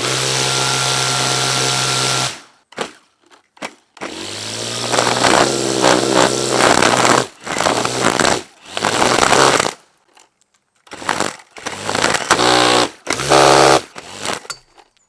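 Cordless string trimmer spinning stainless steel zip ties in place of trimmer line, switched on and off in about five bursts of one to three seconds, each a motor hum under a harsh hiss. The metal ties are getting twisted and mangled up.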